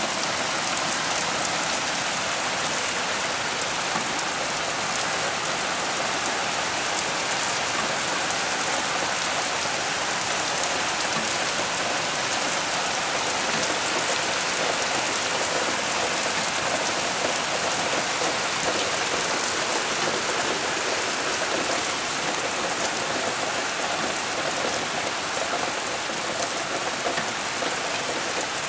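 Heavy rain falling steadily on a wooden deck and lawn: a dense, even hiss that neither swells nor breaks off.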